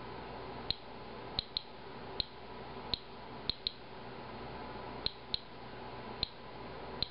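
Inspector Alert Geiger counter clicking at random intervals, about eleven short, high chirping clicks in seven seconds. Each click is one detected radiation count while the monitor tests Japanese green tea, and the count rate is running well above background.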